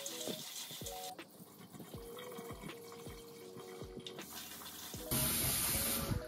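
Kitchen tap running into a plastic bowl of soya chunks, shut off about a second in. Hands swish and rub the chunks in the water with soft knocks against the bowl. The tap is turned on again about five seconds in and runs louder, filling the bowl.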